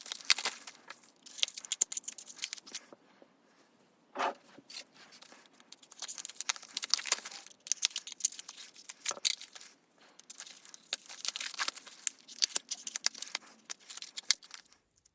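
Plastic packaging crinkling and tearing as small gel polish bottles are unwrapped by hand, in bursts of crackling with sharp clicks and short pauses between them.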